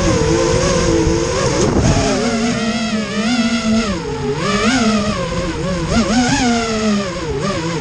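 A drone's motors and propellers whining, the pitch rising and falling constantly as the throttle changes. Wind buffets the microphone with a low rumble for the first couple of seconds.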